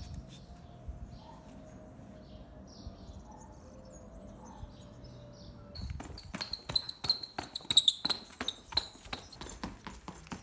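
Quiet outdoor ambience with a faint steady hum and distant bird chirps. About six seconds in, hard footsteps on paving tiles begin, a quick run of sharp taps about five a second, with birds chirping over them.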